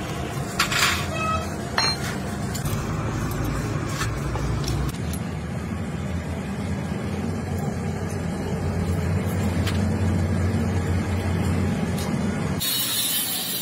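Engine running steadily in the background, with a few sharp metallic clinks in the first couple of seconds as steel parts are fitted onto a truck axle casting by hand. A loud hiss starts suddenly near the end.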